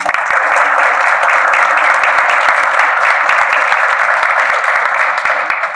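Audience applauding: dense clapping that starts all at once, louder than the talk around it, and dies away near the end.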